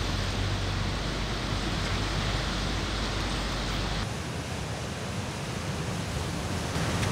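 Sea surf breaking on a rocky shore: a steady rushing wash of waves. About four seconds in, its deep rumble drops away, leaving a lighter, brighter hiss.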